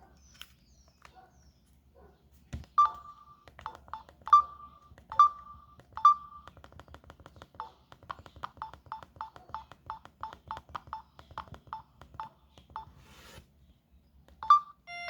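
Samsung SGH-A157 mobile phone's keypad beeps as its buttons are pressed: a few single beeps with pauses, then a quicker run of about three beeps a second, and one more near the end.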